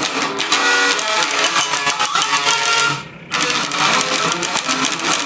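Heavy metal music: fast, dense distorted guitar and drums, breaking off for a split second about three seconds in before crashing back in.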